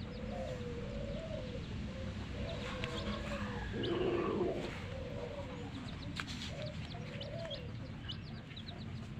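Chicks peeping in short, high chirps scattered through, over lower wavering calls from a hen, with one louder low call about four seconds in.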